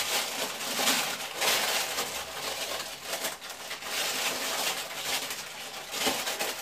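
Parchment baking paper crinkling and rustling in irregular crackles as it is pressed and folded into a metal baking tin.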